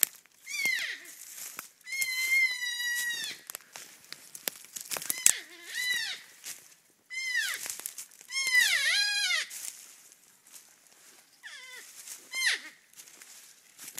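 North American porcupines calling in the mating season: a series of high, wavering whining cries, some held for a second or two and several falling in pitch at the end, with pauses between them. Scattered sharp clicks and rustles come between the calls.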